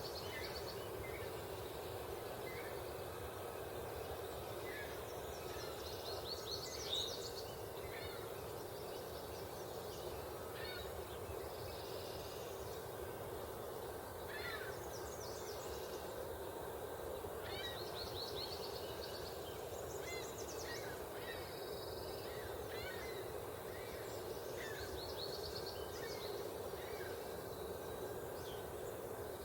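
Several different songbirds singing and calling in spring woodland: short chirps, trills and quick runs of high notes that overlap one another. Beneath them runs a steady low background noise.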